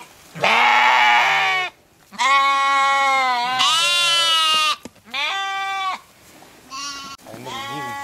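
Sheep bleating repeatedly: about six loud bleats in quick succession, each up to a second or so long, one near the end with a wavering pitch.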